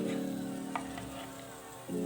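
Background music with held chords that change near the end, and a light click about three quarters of a second in.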